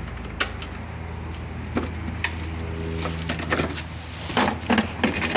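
Scattered knocks and clicks with a burst of rustling as packing paper and factory packaging are pulled off a new lawn mower, over a steady low hum.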